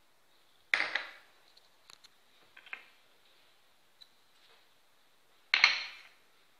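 Ceramic dishes clattering twice, about a second in and near the end, with a few light clinks between, as small plates of ingredients are tipped into and knocked against a mixing bowl.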